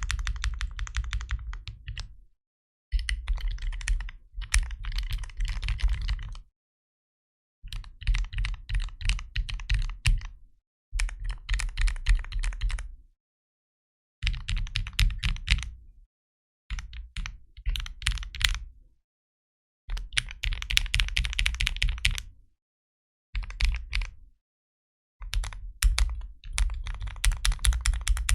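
Typing test on a Daisy 40 custom mechanical keyboard with Cherry MX Hyperglide linear switches, plateless and tape-modded, with PBT keycaps: fast runs of keystrokes about two seconds long, broken by abrupt silent gaps.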